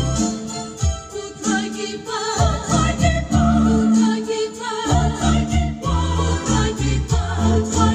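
Mixed choir of women and men singing a hymn in parts, over deep held notes that change in steps. The singing dips briefly about a second in.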